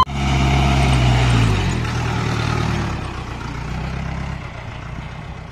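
Safari jeep's engine running, its pitch dropping slightly about two seconds in as it settles, then growing gradually quieter.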